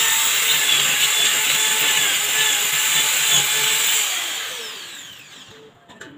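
Corded electric drill running at full speed, boring into a wall, then released about four seconds in and spinning down with a falling whine.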